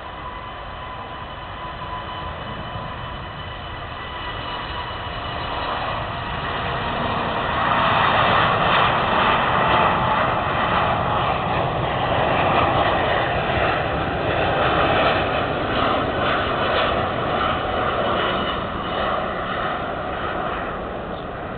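Airbus A380-841 jet engines (four Rolls-Royce Trent 970 turbofans) as the airliner passes, a steady whine over rushing jet noise. It grows louder over the first eight seconds or so, holds at its loudest for several seconds, then eases off near the end.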